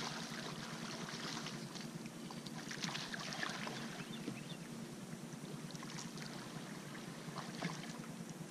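Hooked blue catfish thrashing and splashing at the surface beside the boat as it is reeled in. The splashes come in bursts, strongest at the start and again about three seconds in, over a steady low hum.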